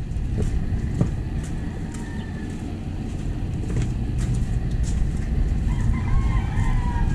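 Street ambience of a narrow residential alley: a steady low hum of distant traffic with a few light knocks, and a rooster crowing near the end.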